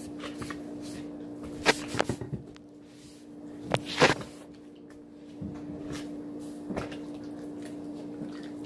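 A few sharp knocks and bumps, the loudest about two and four seconds in, over a steady low hum.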